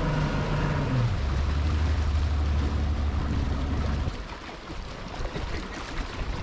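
Bass boat's outboard motor throttling back as the boat comes off plane: its tone drops about a second in, runs low and steady, then falls away about four seconds in, leaving water sloshing around the hull.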